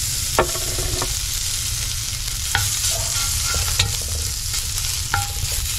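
Pieces of smoked pork fat sizzling as they begin to fry in a large aluminium cauldron, stirred with a wooden spatula. About five sharp knocks of the spatula against the pot, several ringing briefly.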